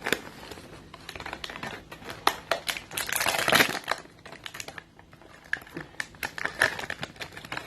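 Crinkling and crackling of a plastic snack wrapper handled in the hands, with many sharp clicks and taps, thickest about three to four seconds in.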